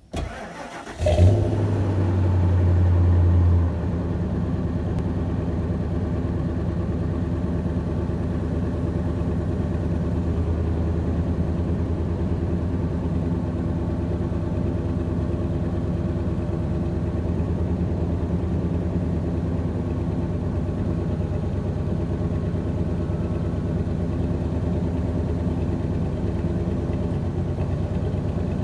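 Ford F-150's 5.4-litre V8 cold-starting, heard at the tailpipe: the starter cranks for about a second, then the engine catches with a sudden burst. It runs at a louder fast idle for a couple of seconds, then settles into a steady idle.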